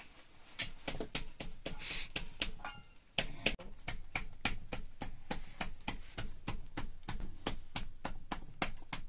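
Roti dough being patted flat by hand on a wooden board: quick, even slaps, scattered at first and then about four a second from about three seconds in.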